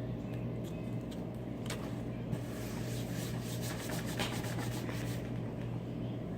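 Slime being stretched and kneaded by hand, giving quick sticky clicks and crackles over a steady low hum.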